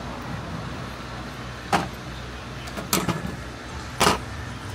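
Three short sharp knocks about a second apart over a steady low background hum, from a small RC dirt-bike wheel and hand tools being handled on a table.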